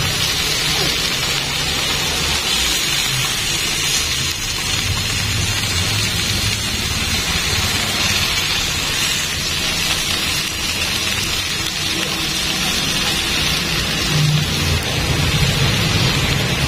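Chicken pieces and a marinated whole fish sizzling steadily on a ridged grill pan, with a low rumble underneath.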